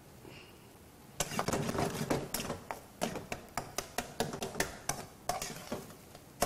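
A spatula scraping and knocking against a frying pan as beef mince is stirred: a quick, irregular clatter that starts about a second in.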